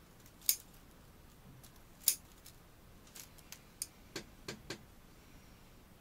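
Bonsai pruning scissors snipping twice through the leaves and twigs of a Korean hornbeam, two sharp clicks about a second and a half apart. They are followed by several lighter clicks and three duller knocks near the end.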